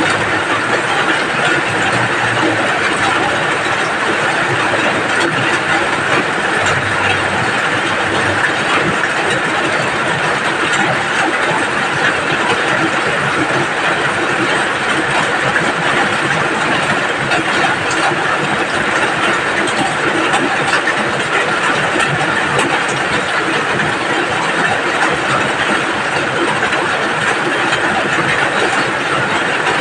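Steady rain falling: a constant, even hiss of drops with fine patters throughout.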